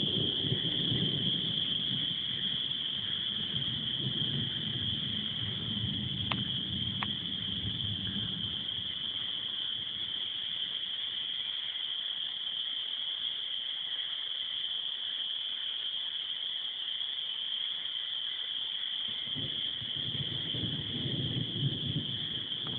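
A steady, high-pitched chorus of spring peepers, with a low rumble of distant thunder that fades away over the first half and builds again near the end.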